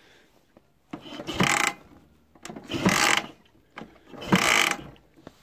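Dnepr MT flat-twin engine cranked three times in short bursts about a second and a half apart without catching, started cold without the choke.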